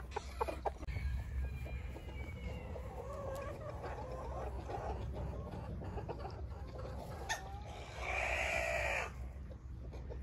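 Backyard chickens clucking on and off. A few sharp taps come near the start, and one louder, harsher call about eight seconds in lasts about a second.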